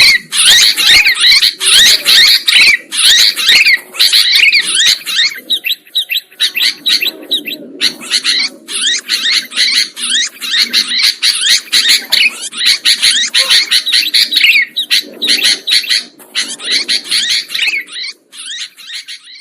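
Sooty-headed bulbul (kutilang) singing busily, a dense stream of quick, bubbly chirps and warbled notes with hardly a pause. A lower hazy sound comes in beneath it twice.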